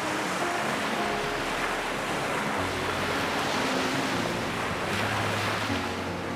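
Ocean surf washing on a beach, with wind gusting on the microphone. A faint low hum comes in about two and a half seconds in.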